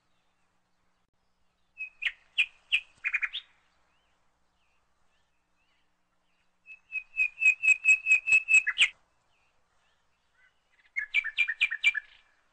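A bird chirping in three quick series of sharp, repeated notes, the longest lasting about two seconds, with silence between them.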